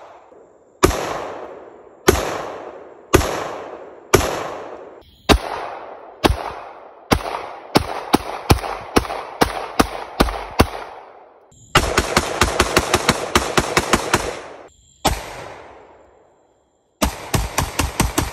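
Pistol gunshots, each with a short echo: single shots about a second apart, then quicker shots, then a rapid string of more than a dozen shots. After one more shot and a brief gap, another rapid string starts near the end.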